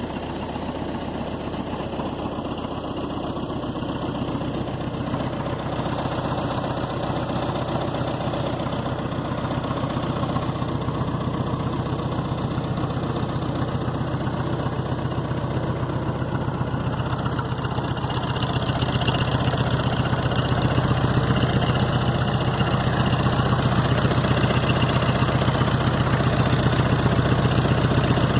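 Gehl 4400 skid steer's Ford four-cylinder engine idling steadily. It grows louder about two-thirds of the way through.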